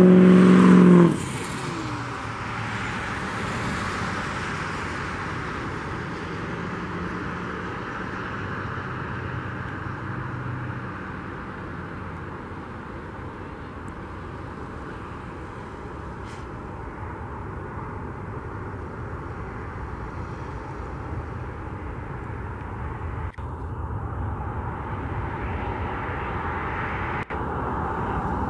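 Southwest Boeing 737's CFM56 turbofan engines on final approach, a steady jet rumble and hiss that grows louder over the last few seconds as the aircraft nears. For about the first second a louder pitched engine sound plays, then cuts off abruptly.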